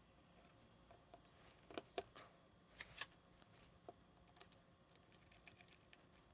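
Small Phillips screwdriver driving tiny screws into the bottom of a camera body: faint, irregular clicks and ticks of the bit and screws, with a few sharper clicks about two to three seconds in.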